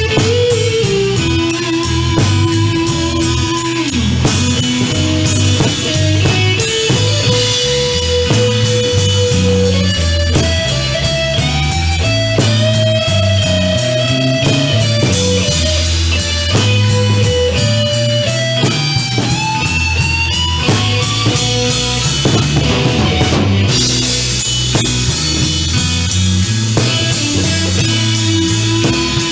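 Blues-rock band playing an instrumental passage: a lead electric guitar line with bent, sliding notes over bass guitar and a drum kit.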